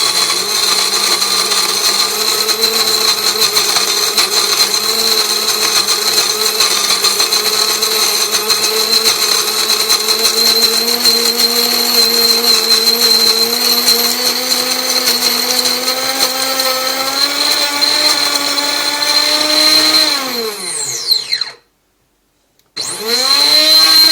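Krups GVX2 burr coffee grinder's quite loud motor running, its whining pitch climbing slowly as the last beans clear and it runs empty. About 21 s in it winds down and stops, then starts again a second later at a higher steady pitch.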